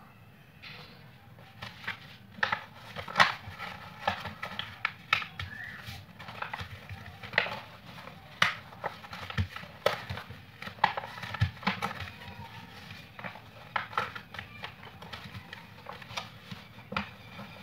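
Square sheet of origami paper being folded and creased by hand: irregular crinkles and sharp paper taps, a few a second, over a low steady hum.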